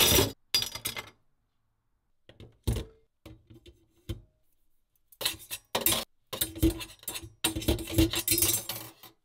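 Stainless steel sink strainer parts clinking and clattering in a stainless sink drain. There are a couple of single knocks, then several longer bursts of metal clatter with a faint ring in the second half.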